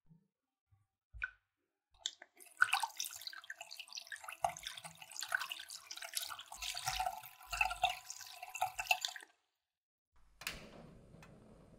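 Milk, egg yolk and sugar mixture sloshing and churning in a stainless steel saucepan as an electric hand blender mixes it, for about seven seconds, then stopping abruptly.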